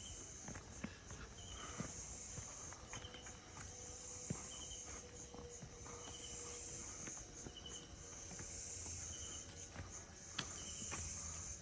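Night insects calling: a high-pitched trill that swells and fades every couple of seconds, with a shorter chirp repeating about every second and a half lower down.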